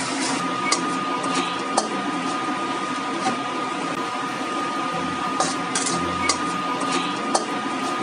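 Metal spatula stirring and scraping grated coconut and anchovies in a stainless steel wok over a steady frying hiss, with sharp clinks now and then as the spatula strikes the pan.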